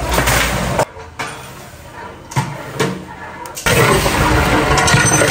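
Raw mutton tipped from a steel bowl into a large cooking pot, with metal clanks and knocks. About three and a half seconds in, a loud steady hiss starts as the meat and masala sizzle in the pot.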